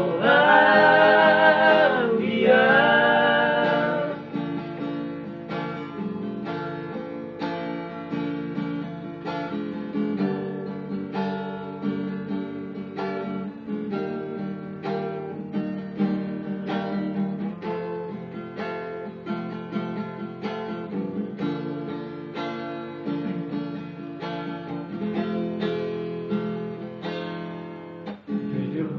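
Acoustic guitar strummed and picked, with several men singing together for the first four seconds or so; after that the guitar carries on alone, quieter.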